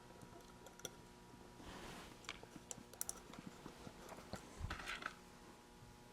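Faint, scattered light clicks and soft rustles of small parts and tools being handled while building an electronics kit.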